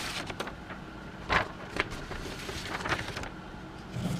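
A few light, sharp clicks and knocks of handling, about four of them spaced a second or so apart, over a low steady background hum.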